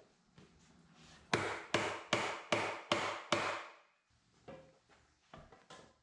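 Six quick mallet strikes on a wooden table apron, about two and a half a second, followed by a few lighter knocks near the end. The blows drive the apron down so its Knapp Duo hidden connector locks onto the mating connector on the leg.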